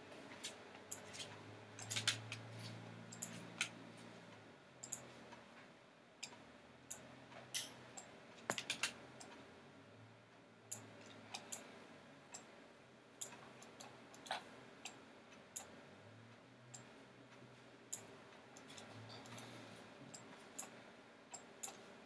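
Computer mouse clicking in scattered single clicks, roughly one a second and unevenly spaced, over a faint low hum.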